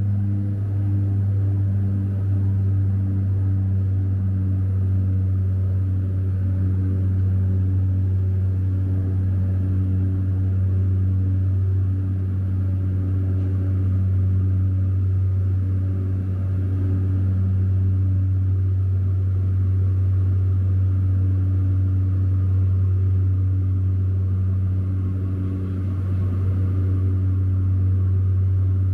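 Steady, loud drone of a de Havilland Canada Twin Otter floatplane's turboprop engines and propellers in the climb, heard from inside the cabin: a deep, even hum with a ladder of higher tones above it.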